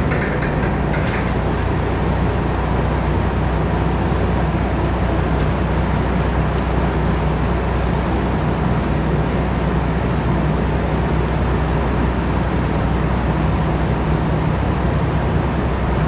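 Vintage AMC box fan running: a steady rush of air over a low motor hum.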